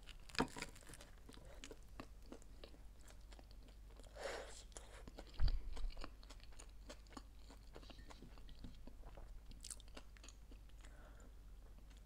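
Close-miked bite into a grilled toasted sandwich with a crunch about half a second in, then steady chewing with many small crunchy clicks. A low thump about halfway through is the loudest sound.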